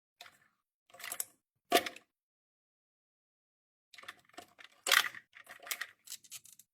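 Handling noise of hands working with tools and wiring: scattered clicks and knocks, a sharper knock just under two seconds in, and a run of clattering from about four seconds in, loudest near five seconds.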